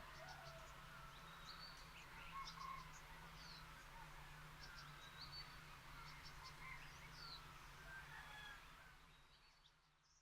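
Many birds chirping and calling at once, short chirps, sweeps and trills overlapping, over a faint low steady hum; the whole ambience fades out near the end.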